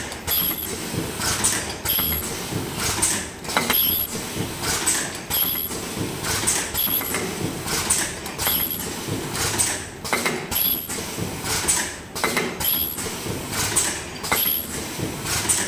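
Ultrasonic mask ear-loop welding machine with ear-loop folder and counting conveyor running in production, cycling about once a second: a sharp mechanical clack with a brief high-pitched whine each cycle, over a constant machine hum.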